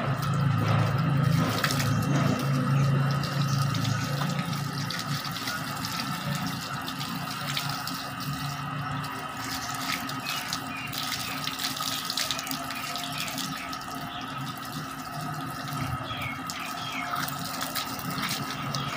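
Water running from a hose and splashing onto a motorcycle's engine as it is rinsed, steady throughout and heavier in the first few seconds, with a faint steady hum underneath.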